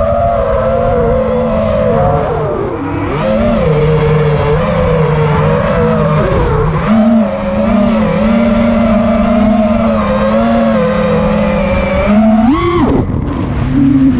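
FPV racing quadcopter's four Lumenier 2206 2350kV brushless motors on a 4S battery, spinning DALPROPS tri-blade props in flight: a buzzing whine that rises and falls with the throttle. About twelve seconds in, a short throttle punch sends the pitch sharply up, then it drops away. A low rush of air runs underneath.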